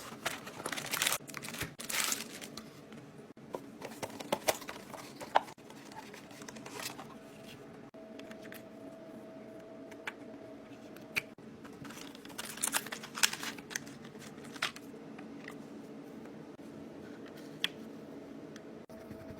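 Packaging being handled: crinkling and rustling in two bouts, at the start and about two thirds in, with scattered sharp clicks and taps between them. A steady low hum runs underneath.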